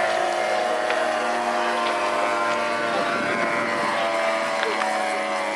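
Radio-controlled aerobatic model plane flying past, its engine and propeller running steadily, with the pitch shifting a little around the middle.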